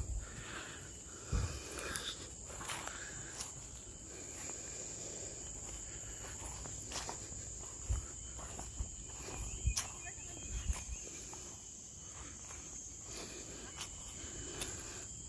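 Insects keep up a steady, high-pitched chirring drone, with scattered soft clicks and low thumps throughout.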